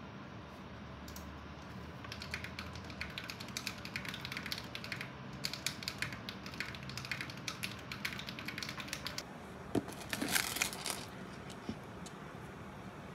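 Typing on a keyboard: a quick, uneven run of soft key clicks, followed about ten seconds in by a brief rustle.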